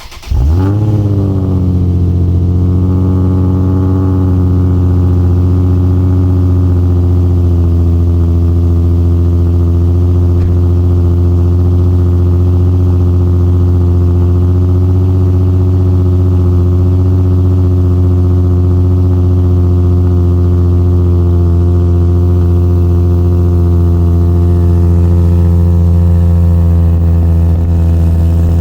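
Nissan 350Z's VQ35HR V6 cold-starting through a Z1 dual exhaust with its silencers fitted: it catches with a brief rev flare in the first second, then settles into a steady, loud cold idle.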